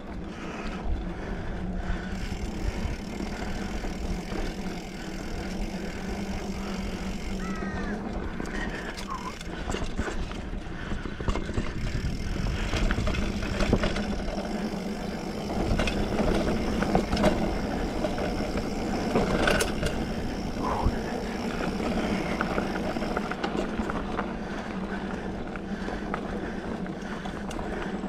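2020 Specialized Fuse 27.5+ mountain bike ridden along a dirt trail: steady rolling noise, with clatters and rattles from the bike over bumps that are busiest around the middle.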